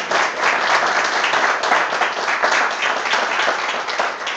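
Audience applauding: a room full of people clapping steadily in welcome of the next speaker.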